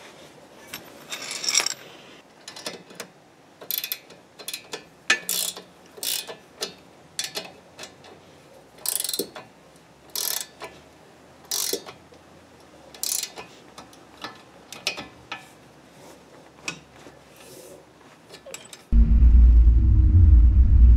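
Ratcheting wrench clicking in short runs about once a second as the nut on a Fiat X1/9's front strut camber bolt is tightened. About two seconds before the end it gives way to the car's engine running loud and deep, heard from inside the cockpit.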